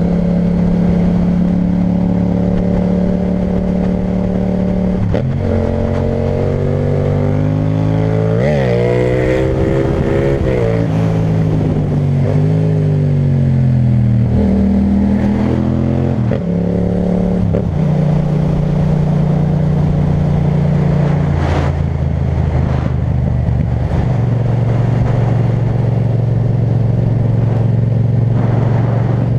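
Yamaha MT-07 parallel-twin engine running through an Akrapovic titanium exhaust while riding. It holds a steady note at first, then its pitch climbs and drops several times through the middle as the rider accelerates and shifts gears, settles into a steady note again, and steps down in pitch near the end.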